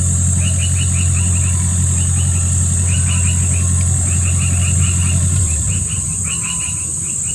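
A low, steady engine hum that fades away about five and a half seconds in. Under it runs a steady high-pitched insect buzz and repeated quick series of short chirps.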